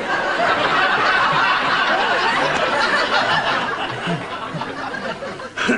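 Audience laughing, breaking out all at once and dying down over the last couple of seconds, with a single sharp knock near the end.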